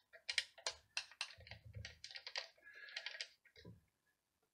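Small hobby lathe being tightened by hand on a wooden dowel: a quick, irregular run of light clicks and small knocks, like fast typing, that stops a little before the end.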